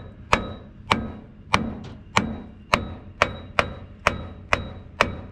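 Hammer striking the steel hydraulic cylinder and mount of a backhoe's stabilizer leg in a steady series, about two blows a second, each with a short metallic ring. He is pounding the seized cylinder to force hydraulic fluid out of it so the stuck leg will come up.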